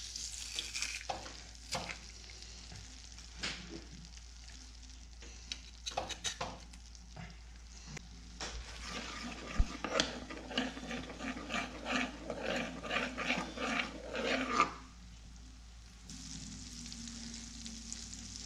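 Butter sizzling in a nonstick frying pan, with scattered clicks and taps. From about eight seconds in, a metal spoon stirs the pan with quick, repeated strokes for about six seconds, then the sizzle carries on alone.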